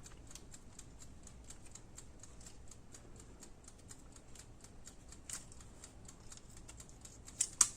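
Faint, rapid ticking throughout, with a few sharper clicks about five seconds in and twice near the end.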